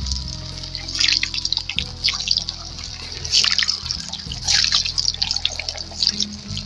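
Maida dough balls deep-frying in hot oil in a kadai, the oil sizzling with irregular bursts of crackle. Soft background music runs underneath.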